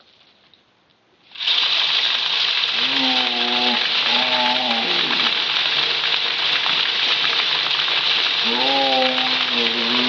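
A barrel deer feeder's spinner kicks on suddenly about a second in and flings shelled corn, a loud steady spray of kernels pelting the ground and leaves. A man's voice gives three drawn-out calls over it.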